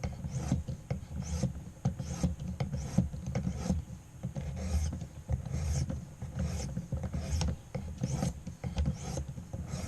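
Pocket knife blade being sharpened on a knife sharpening system: repeated rasping strokes of steel across the abrasive, a little more than one a second.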